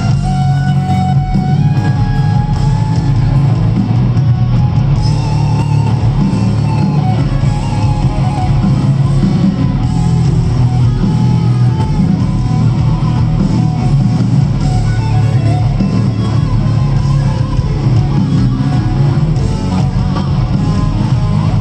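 Live rock band playing at full volume: electric guitars over bass and drums, with a heavy, steady low end and a bending melodic guitar line above it.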